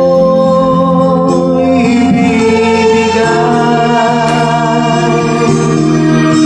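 Background music: slow held chords, a choir-like sung or organ-like sound.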